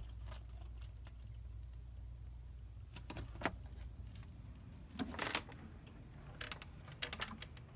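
A few light metallic clinks and clicks from clothes hangers and a closet door being handled: one about three seconds in, a cluster around five seconds, and several more near the end, over a low steady hum.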